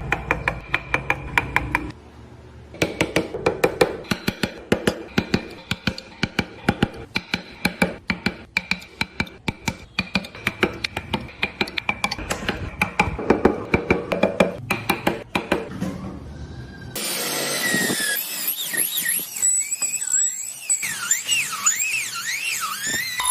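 Hand wood carving: rapid taps of a mallet or hammer on a chisel cutting wood, several strikes a second, with a brief pause about two seconds in. Near the end the tapping gives way to a high-pitched power tool whose whine rises and falls over and over.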